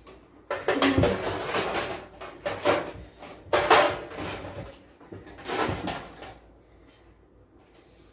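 Kitchen rummaging: a long burst of clattering and rustling about half a second in, then three shorter bursts, as things are pulled from a kitchen drawer or cupboard.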